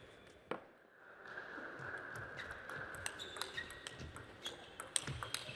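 Table tennis ball clicking: one sharp tap early, then in the second half a quick irregular run of sharp clicks as the ball strikes rackets and the table in a rally.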